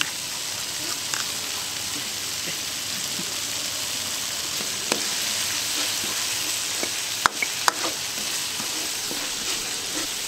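Ground red chilies frying in oil in a wok, a steady sizzle, while a wooden spatula stirs and scrapes them around the pan, with a few sharp knocks of the spatula against the wok in the second half.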